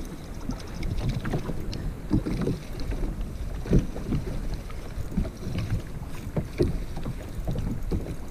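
Wind buffeting the microphone and choppy sea slapping against a Sea-Doo Fish Pro jet ski's hull: a steady low rush broken by irregular short thumps.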